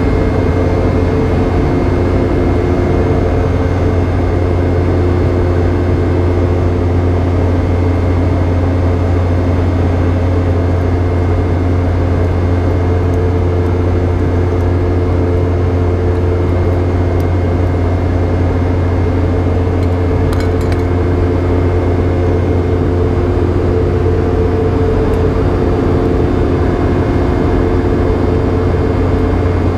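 Steady in-flight cabin drone of a Boeing 717's rear-mounted Rolls-Royce BR715 turbofans, heard from a seat right beside the engines: a strong low hum with several steady tones above it. A faint click about twenty seconds in.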